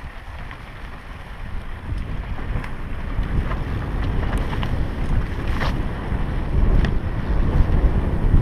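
Wind buffeting a helmet-mounted action camera's microphone on a mountain-bike descent, a low rumble that grows louder about two seconds in as speed builds. Scattered sharp clicks from the bike jolting over the dirt trail.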